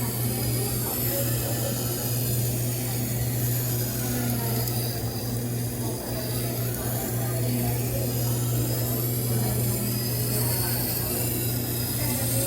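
Tormek T-8 water-cooled sharpening machine running with a steady low hum while a knife is ground on its slow-turning wet stone.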